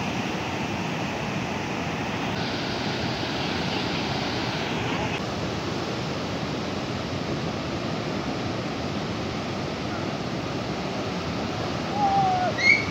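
Rough sea surf, a steady hiss of breaking and washing waves. The hiss grows brighter for about three seconds, starting some two seconds in.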